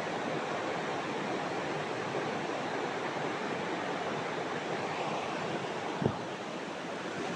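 Steady rushing of river water flowing past rocks, with a single brief thump about six seconds in.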